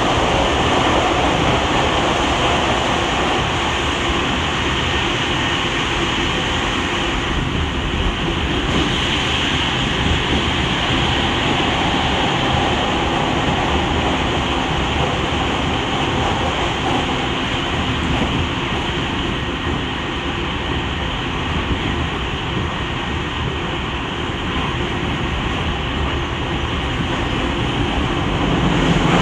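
Steady running noise inside a Tokyu 5000 series electric train car with Hitachi IGBT inverter control, moving at speed: wheels on rails and the motor car's running gear, loud and even, swelling slightly near the end.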